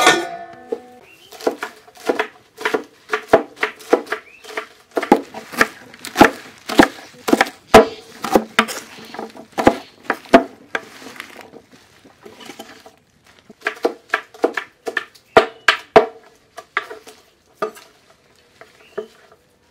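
Wide-bladed kitchen knife chopping Malabar spinach leaves on a wooden board: irregular sharp chops, two or three a second, with a short pause partway through and fewer strokes near the end. A ringing metal clank at the very start.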